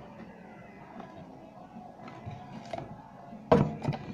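Plastic cling film being handled and laid over a glass bowl, with faint rustles and clicks and a sudden loud crackle about three and a half seconds in.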